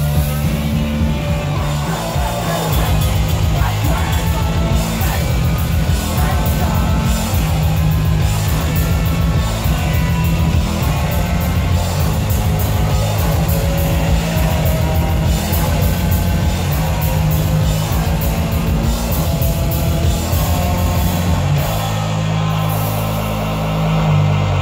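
Live punk/noise-rock band playing fast and loud: distorted electric guitar, bass guitar and a drum kit hammering out rapid beats. Near the end the drumming stops and the guitar and bass ring on.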